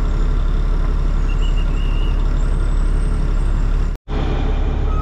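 Heavy truck's diesel engine running steadily at low speed, a deep rumble heard from inside the cab, broken by a split-second gap near the end.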